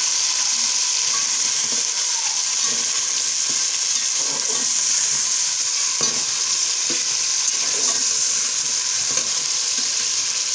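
Potatoes and boiled beef chunks sizzling steadily as they fry in oil in an aluminium pot, stirred with a metal slotted spatula that scrapes and knocks lightly against the pot now and then.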